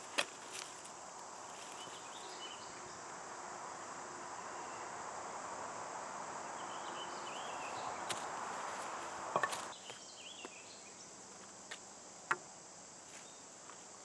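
Steady chorus of crickets and other insects, with a few sharp clicks and knocks from a knife and wooden sticks being handled, the loudest right at the start. A soft rushing hiss swells in the middle and stops with a short clatter about nine and a half seconds in.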